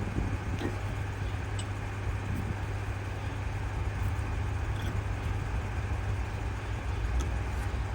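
Steady low mechanical hum, like an engine or motor running in the background, with a few faint light clicks.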